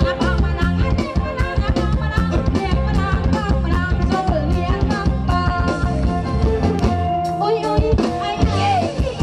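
Live kantrum band music in the electric Khmer Surin style, with electric guitars over a drum kit keeping a steady dance beat.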